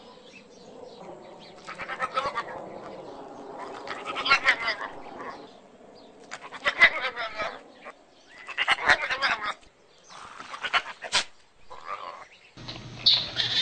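An animal calling over and over, loud pitched cries a second or two apart. Near the end a steady low hum comes in.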